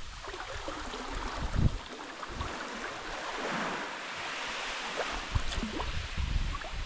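Sea kayak being paddled across calm water: water rushing and trickling along the hull with small drips off the paddle. Wind buffets the microphone in low rumbling gusts in the first couple of seconds and again from about five seconds in.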